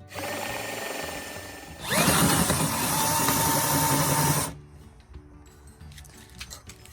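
Power drill boring into chipboard: a first run, then a louder run that rises in pitch as the motor spins up and holds a steady whine before it stops about four and a half seconds in.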